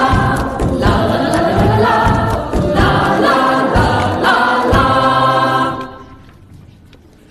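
Music with several voices singing together, choir-like, which stops about six seconds in, leaving only faint background sound.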